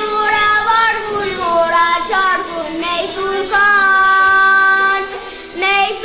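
A young girl singing solo, holding one long steady note a little past the middle.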